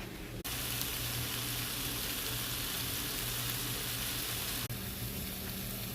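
Mushrooms and onions sizzling as they sauté in a hot pan: a steady hiss that jumps louder about half a second in and shifts again near the end, over a low steady hum.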